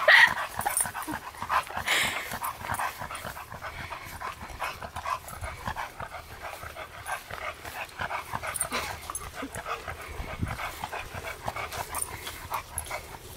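Dogs moving about, with a dense run of small clicking sounds throughout. A louder, sharp sound comes right at the start and another about two seconds in.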